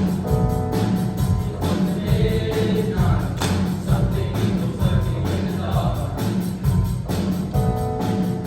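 Girls' choir singing over a band accompaniment with a steady drum beat.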